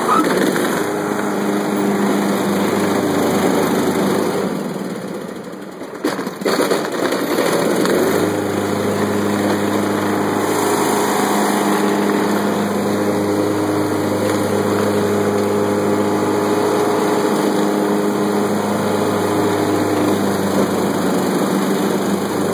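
Craftsman LT1500 lawn tractor engine running as the mower blades are dropped and engaged. Its level sags about five seconds in, a couple of sharp clunks come near six seconds, then it runs steadily and fuller. This tractor stalls soon after the blades are engaged, which the owner takes for the engine flooding with gas.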